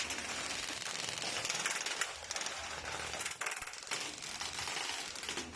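Airsoft guns firing in rapid bursts, a fast clatter of shots that runs almost without a break, easing off briefly past the middle.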